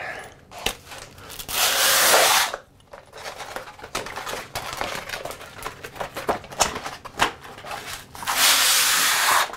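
Cast-iron sole of an old long bench plane scraped along 50 grit sandpaper on glass: two long rasping strokes, one about a second and a half in and one near the end, with light clicks and rustles of the paper between them. This is the sole being lapped flat on coarse abrasive.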